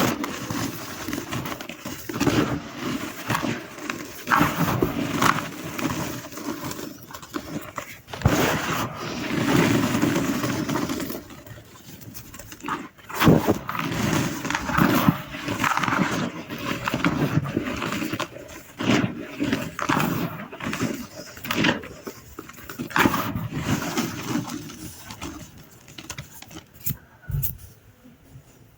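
Dry gym chalk being crushed and crumbled, crunching and crackling in irregular waves with many small sharp cracks and a soft powdery hiss.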